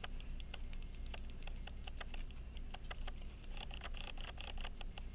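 Pocket watch being wound: the ratchet wheel and its freshly re-tensioned click clicking sharply and unevenly, a few clicks a second, now catching as they should. A short rubbing sound about four seconds in.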